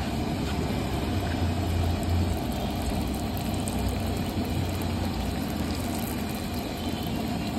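Steady street background noise: a low traffic rumble under a continuous even hiss.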